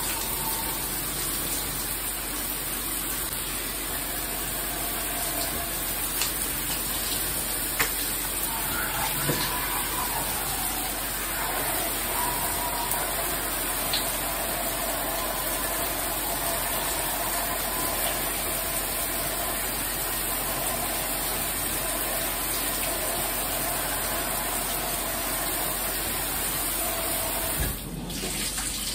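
Shower running: a steady hiss of water spray falling in the stall, dropping away suddenly near the end.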